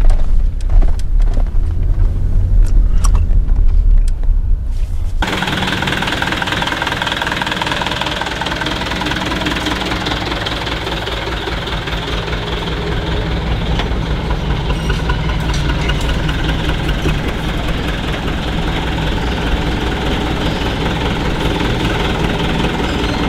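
Truck engine running: a heavy low rumble for about five seconds, then an abrupt cut to a steady, denser engine drone with a faint regular pulse.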